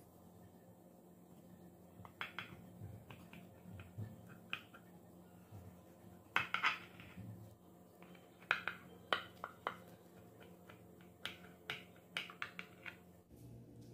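A knife cutting through a baked cheese-topped bread pie in a ceramic baking dish: short scraping strokes through the crust, with clicks of the blade against the dish. The strokes come in several separate bursts, the loudest about six and a half seconds in.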